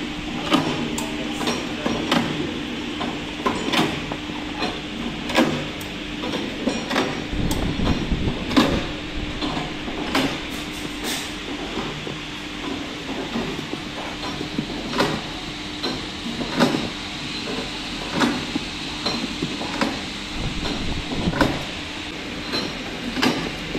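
EMS 1725 cherry pitting machine running: a steady motor hum with a sharp clack about every second and a half as the row of pitting pins strikes down into the cherries held in the drum's cups, with lighter clicks and rattles in between.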